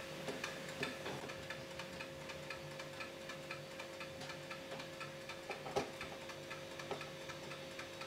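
Faint, even ticking over a steady low hum, with a few slightly louder clicks between about five and seven seconds in.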